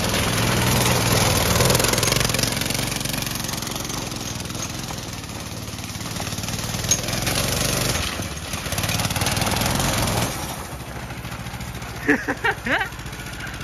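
A go-kart's small engine running hard as the kart drives and slides on gravel, with a rough noise of tyres and stones over the engine. It is loudest at the start and again later, then drops away after about ten seconds. A few short shouts come near the end.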